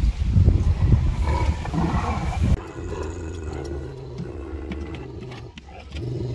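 Kangal shepherd dog giving a deep, drawn-out howl lasting a few seconds. It follows a loud low rumbling noise in the first couple of seconds.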